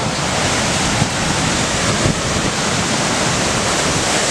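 Hurricane wind and rain blowing hard and steadily, a dense even rush of noise with wind buffeting the microphone.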